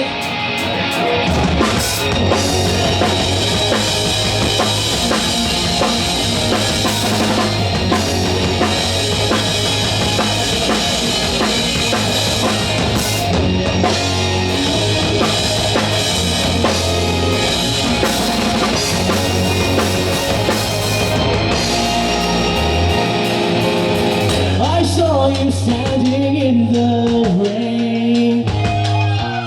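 Live rock band playing, with a full drum kit and a steady bass line under guitars. About 23 seconds in, the bass and cymbals drop out for a sparser passage carried by a gliding melody line, before the low end returns near the end.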